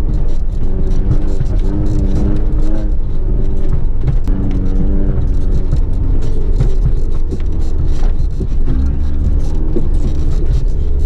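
Small 4x4 driving slowly over a rough, rutted grass track: a steady low engine and road rumble with scattered knocks from the bumps. Music plays over it.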